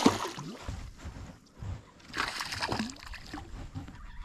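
A small hooked fish splashing at the water's surface as it is reeled toward the bank: a sharp splash right at the start, then more splashing about two seconds in.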